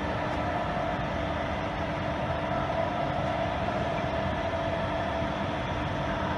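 Weiler Commodor lathe running, its spindle turning a steel shaft in the chuck: a steady mechanical hum with a couple of steady tones.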